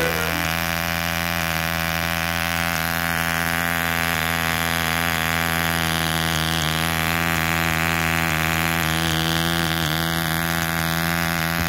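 Davies Charlton 1cc two-stroke model diesel engine running steadily, driving its propeller, with one even pitch that wavers slightly now and then.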